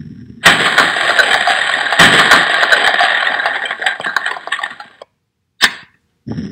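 Earthquake sound effect: a low rumble, then from about half a second in a loud crashing, crumbling noise full of clatter, the sound of buildings breaking up, which fades out after about four and a half seconds. A short sharp burst follows near the end, and the low rumble starts again.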